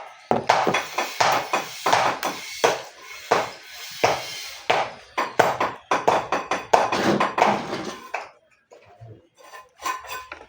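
Rapid, irregular knocking and clattering from building work, two or three sharp strikes a second, dying away to a few faint knocks about eight seconds in.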